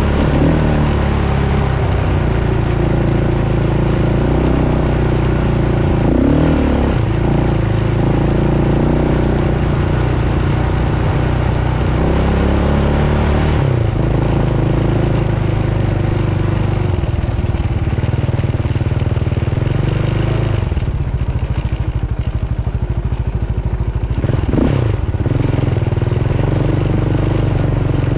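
Off-road vehicle engine running under load while riding over sand, its pitch rising and falling with the throttle. It eases off about two-thirds of the way through, then revs up again near the end.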